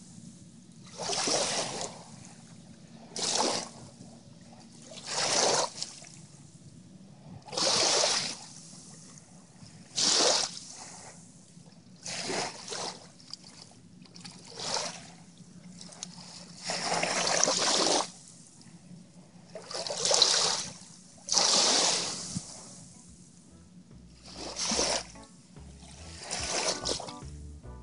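Small waves lapping and washing in the shallows at the water's edge. Each surge is a short hiss, coming every two to three seconds.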